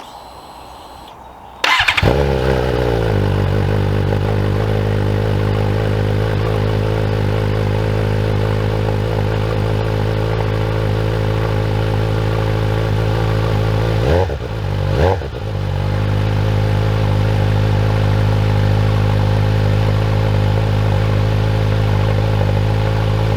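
Suzuki GSX-S750's inline-four engine starting about two seconds in and settling to a steady idle, heard through a Yoshimura Alpha T slip-on exhaust with its quieting baffle fitted. Two quick throttle blips rise and fall about two-thirds of the way through, then it idles on.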